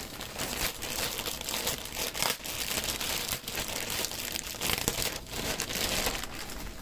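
Crinkling and rustling of a bag, with many small sharp crackles, as a skein of bulky yarn is rummaged for and pulled out of it.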